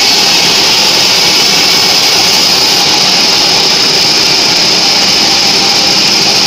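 Band sawmill running with a loud, steady high-pitched whine over a hiss.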